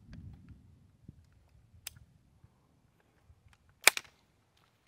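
Blank round firing an AR-style rifle's muzzle-mounted golf ball launcher: sharp cracks, a faint one about two seconds in and a much louder double crack near the end.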